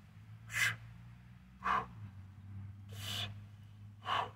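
A man's sharp, forceful breaths, four of them about a second apart, as he strains to press a 40 kg kettlebell overhead with one arm.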